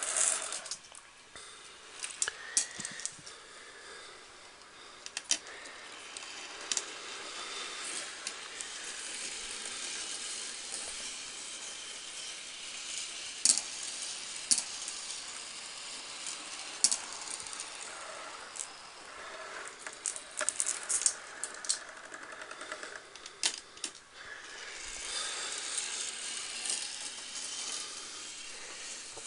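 Marbles rolling along a plastic marble-run track: a steady rolling rattle with many sharp clicks scattered through it.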